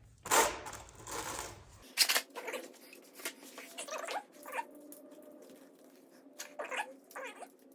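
Drain plugs being threaded in by hand on a Honda Rebel 1100 DCT: a brief scraping rattle, then a string of short metallic clicks and taps as the plugs and tools are handled.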